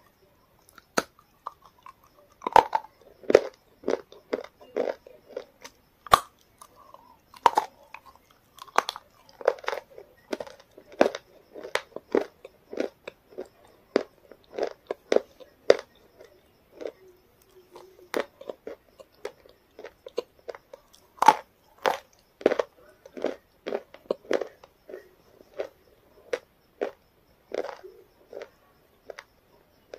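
A person biting and chewing a brittle white food close to the microphone: sharp, irregular crunches, often several in quick succession, with short pauses between bites.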